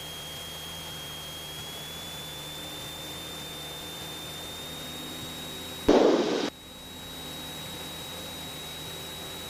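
Light-aircraft cabin sound through the intercom: the Cessna 172SP's engine drones at reduced approach power under a steady high whine that rises slightly in pitch. About six seconds in, a loud half-second burst of static-like noise cuts in, then drops away.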